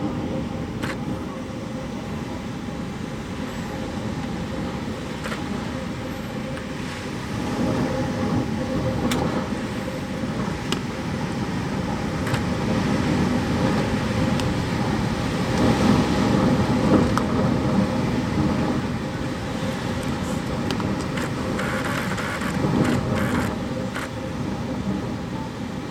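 Outdoor storm noise at the height of Typhoon Hagibis: a steady rush of wind, rain and road noise that swells and fades several times and is loudest about two-thirds of the way through.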